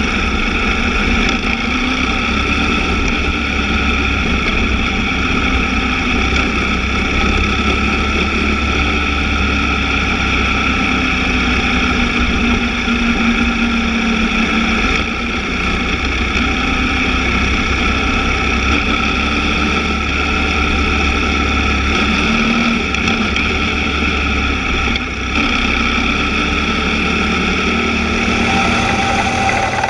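BMW GS adventure motorcycle's twin-cylinder engine running steadily at riding speed on a gravel track, heard from a camera mounted low beside the rear wheel and exhaust, under a constant rush of wind and road noise.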